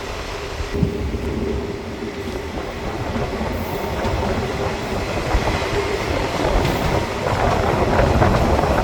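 DEMU train running on the line, a steady hum under the running noise and a single knock about a second in; the noise grows louder toward the end.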